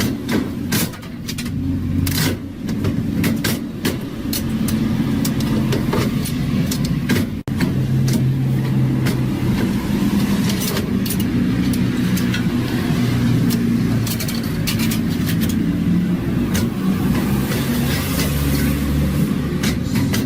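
Steady low machine hum, wavering slightly in pitch, with many sharp clicks and knocks over it; the sound drops out briefly about seven and a half seconds in.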